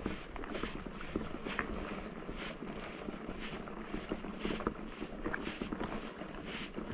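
Wind buffeting the microphone over a steady rustling rumble, with a soft hiss swelling about once a second and scattered small clicks.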